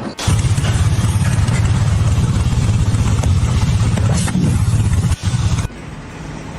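An engine running loudly with a rapid, even pulse. It starts abruptly and drops away sharply about five and a half seconds in.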